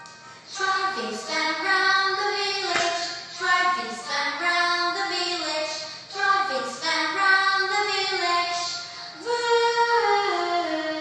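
A woman singing a children's phonics song for the letter V, in a string of short sung phrases of held notes.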